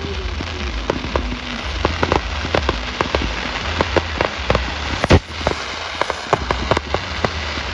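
Steady rain pattering on an umbrella, with many sharp drop taps, and one loud firework bang about five seconds in.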